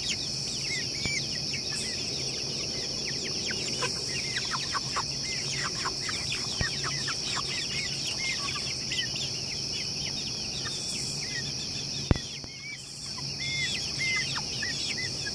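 Two-month-old chickens peeping as they settle to roost for the night: many short, downward-sliding peeps, thick in the first half and thinning to a few short chirps near the end. A steady high-pitched drone runs underneath, and a single sharp click comes about twelve seconds in.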